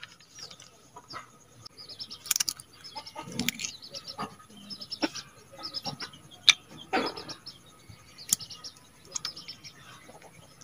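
Chickens clucking, with small birds chirping now and then. A few sharp clicks come through as well, the loudest about six and a half seconds in.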